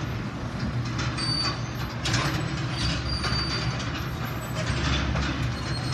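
Steady low mechanical hum and rumble under a continuous hiss, with a few short faint high squeaks.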